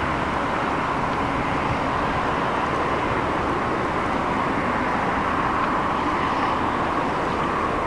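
Steady, even rumble of a distant Hitachi Zaxis 870 excavator's diesel engine working.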